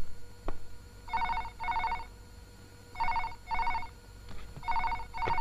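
Desk telephone ringing in a double-ring pattern, three pairs of rings, with a couple of sharp clicks just before the first ring.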